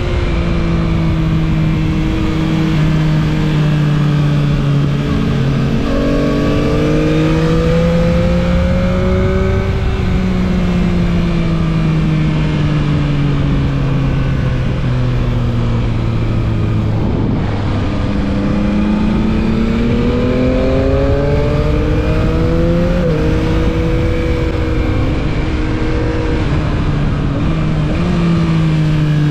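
Yamaha MT-09 SP's 890 cc three-cylinder engine pulling and easing off through the gears, its pitch climbing and falling several times with quick steps at the gear changes. A steady rush of riding wind runs underneath.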